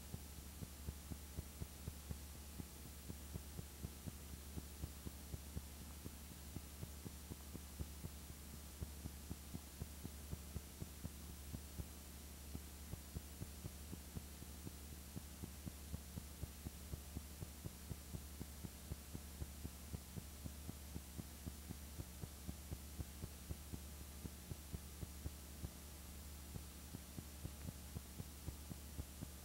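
Steady low electrical hum with faint regular clicks, about three a second, and no other sound.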